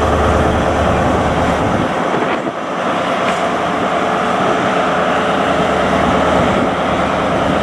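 Class 43 HST diesel power car moving away. Its low engine drone drops away about two seconds in, leaving a steady rumble of the train running on the rails.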